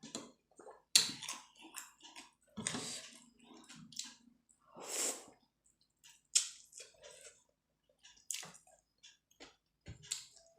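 Close-miked eating: chewing and wet, squishy mouth sounds of eating chicken momos with soup, in irregular bursts with a few longer noisy stretches.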